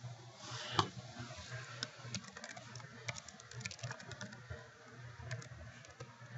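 Faint typing on a computer keyboard: a run of irregular keystroke clicks, with one sharper click about a second in.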